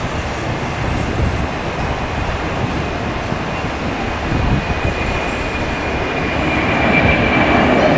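Four jet engines of a Boeing 747 freighter at climb-out power just after takeoff: a loud, steady noise with a deep rumble. It grows louder over the last couple of seconds, and a thin whine comes in near the end.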